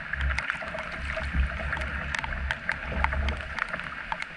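A canoe gliding through shallow river water: water washes along the hull over a low rumble. Many irregular sharp ticks of rain hit the camera.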